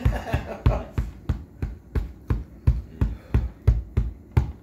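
Steady rhythmic thumping, about three low thuds a second.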